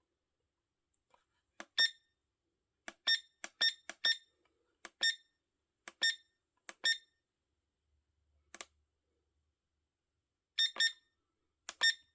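Short, high electronic beeps from a cheap wireless charger alarm clock, one with each press of its buttons while the alarm is being set. There are about a dozen at irregular intervals, some in quick pairs.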